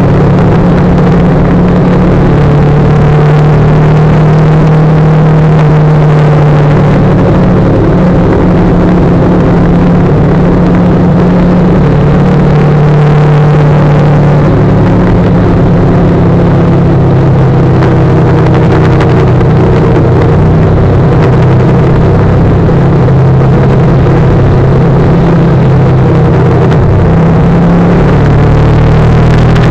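Motorcycle engine running at a steady cruising speed, its note rising and falling a little as the throttle changes, under a loud, constant rush of wind noise.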